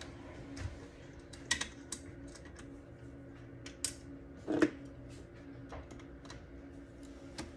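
Scattered light metal clicks and taps of a hex key and mount screws as a scope mount is tightened onto a rifle's top rail, with one louder knock about four and a half seconds in. A steady low hum runs underneath.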